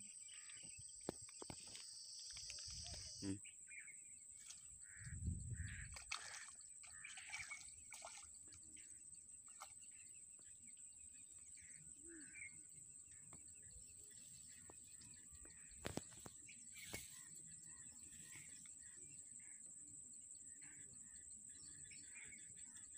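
Faint outdoor ambience: a steady high insect drone and scattered short bird chirps. A low thump comes about five seconds in and a pair of sharp clicks near the middle.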